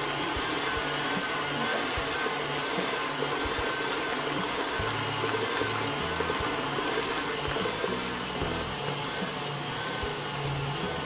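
Electric stand mixer running steadily, its wire whisk beating eggs and sugar in a steel bowl until they turn pale and fluffy.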